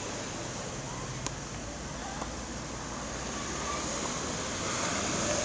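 Steady outdoor hiss like wind on the microphone, with two faint sharp knocks about a second apart, typical of a tennis ball coming off a racket and bouncing on the court.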